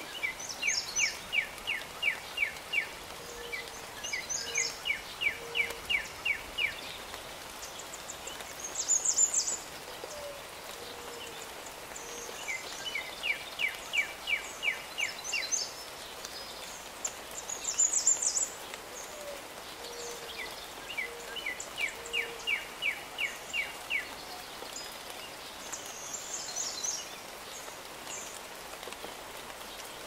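A songbird singing over a steady hiss of light rain. It repeats a phrase of about eight quick, evenly spaced notes four times, each phrase two to three seconds long, with separate high chirps mixed in; the loudest of these come about nine and eighteen seconds in.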